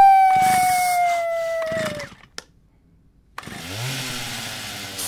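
Cartoon sound effects: a whistle-like tone that slowly slides down in pitch for about two seconds, then after a short gap a buzzing, motor-like drone that rises and holds steady.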